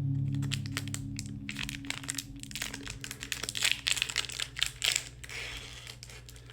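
Foil wrapper of a Pokémon TCG booster pack crinkling and crackling as it is handled and opened, in many quick irregular crackles.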